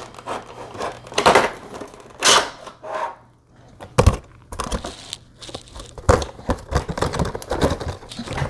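Clear plastic packaging crinkling and rustling as it is handled and slid out of a cardboard box. About four seconds in there is a hollow knock as the plastic tray is set down on the table.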